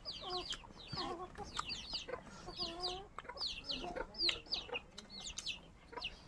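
Chickens clucking, with short high falling peeps coming in quick twos and threes about once a second.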